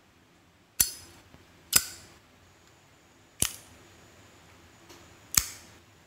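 Brass Zippo lighter's hinged lid clicking open and shut: four sharp metallic clinks with a brief bright ring, the first two about a second apart and the last two about two seconds apart.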